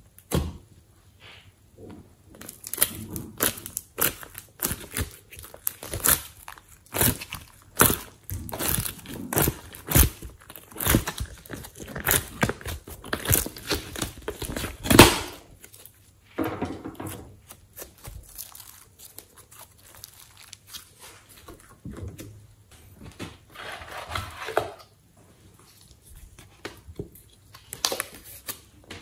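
Glossy slime being squished and pressed with the fingers, part of it into a plastic ice-cube tray mould, giving many sharp pops and crackles as trapped air bursts. The loudest pop comes about halfway through, and softer sticky crackling follows.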